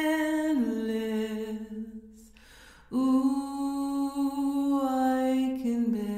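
A solo voice sings long held wordless notes, a cappella, with no words in them. Each note steps down in pitch: the first about half a second in, fading out around two seconds. A new note starts about three seconds in and drops again near the end.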